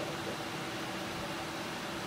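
Steady fan hum and hiss of a running desktop computer, with a faint low tone underneath.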